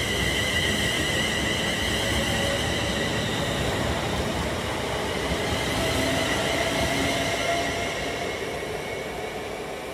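London Northwestern Railway Class 350 Desiro electric multiple unit running past: wheels on the rails, with a steady high-pitched whine from its traction equipment. The sound fades near the end as the rear of the train goes by.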